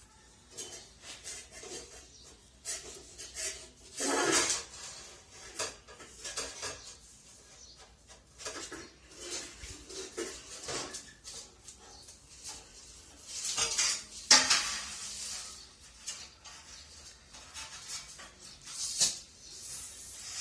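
Hard objects clinking and scraping at irregular intervals, like metal tools and ceramic tiles being handled. There are louder scraping bursts about four seconds in, around fourteen seconds, and near the end.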